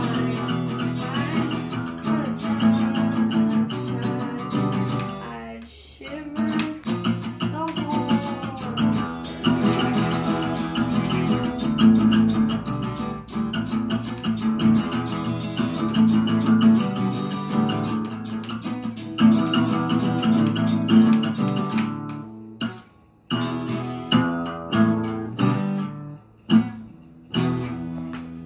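Acoustic guitar strummed in chords. Near the end the strumming breaks into separate chords with short pauses between them.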